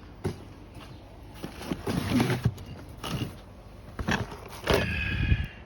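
Handling noises from unpacking an RC truck: irregular clicks, knocks and rustles of packaging and plastic, with a brief pitched sound near the end.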